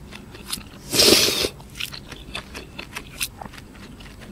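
Close-up mouth sounds of a person eating baked mussels: wet chewing and small clicks and smacks, with one louder noisy burst about a second in.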